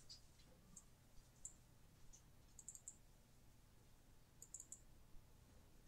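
Faint computer mouse button clicks: a few single clicks, then two quick runs of clicks near the middle and near the end, over a low steady hum.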